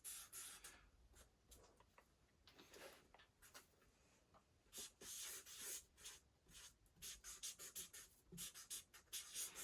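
Faint scratching of a pen drawing on paper in short strokes, sparse at first and more frequent about halfway through.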